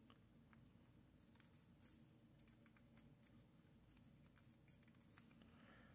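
Near silence: faint room hum with a few soft ticks and rustles from origami paper being folded and creased by hand.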